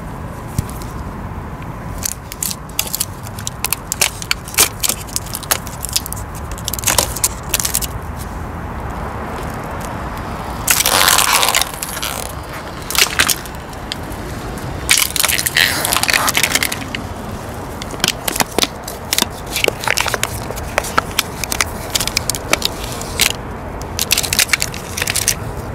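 Car tyre rolling over and crushing crunchy objects: two long stretches of dense crackling and cracking about a third and two thirds of the way through, with scattered sharp clicks and crackles in between.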